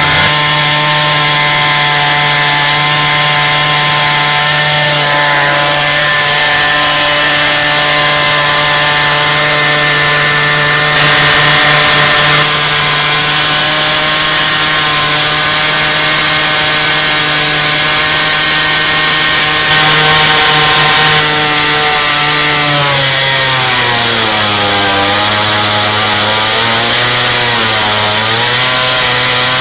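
Pipe-cutting chain saw running steadily in a cut through an iron water main. Over the last several seconds its note dips and wavers in pitch as it bogs down, which basically means it is being fed too fast.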